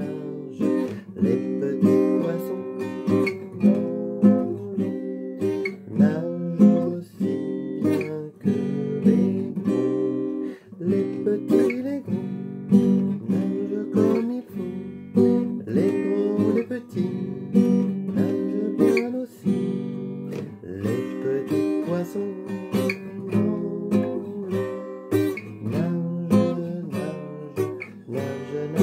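Acoustic guitar strummed in a steady rhythm, chords ringing between evenly spaced strokes.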